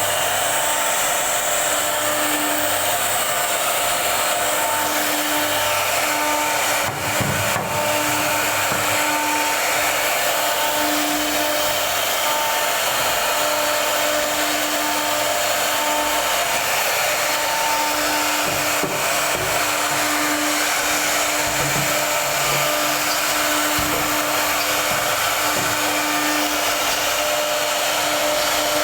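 High-speed CNC router running: a steady, loud whirring hiss, with a low hum that breaks on and off every second or so and a couple of brief knocks.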